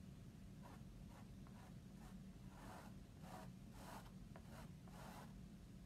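Faint, short scraping strokes of a squeegee spreading chalk paste across a silk-screen transfer, about ten swipes in a row.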